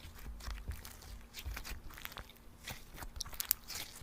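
Slime being squished and pressed by hand, giving irregular small clicks, pops and crackles.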